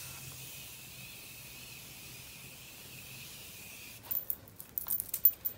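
Continuous-mist setting spray can hissing steadily as it is sprayed over the face, for about four seconds, then stopping. A few faint clicks and rustles follow.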